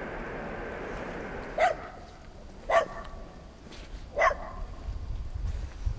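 A dog barking three times, short sharp barks a second or so apart, over a steady hiss that fades out in the first two seconds. Near the end a low rumble starts to build.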